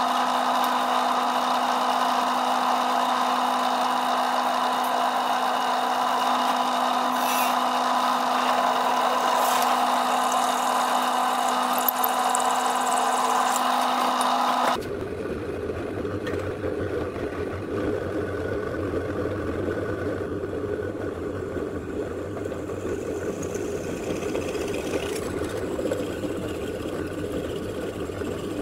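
Drill press motor running with a steady hum. About halfway through the sound changes abruptly to a lower, rougher grinding as the twist drill bit bores through square steel tubing.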